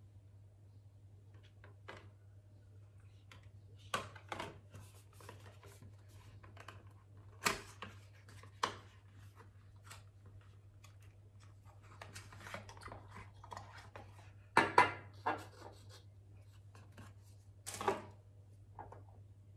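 Cardboard product box being opened and handled by hand: scattered rustles, scrapes and taps of the carton and its paperboard insert. The loudest knocks come about fifteen seconds in and again near the end, when the bottle is stood on the table. A low steady hum runs underneath.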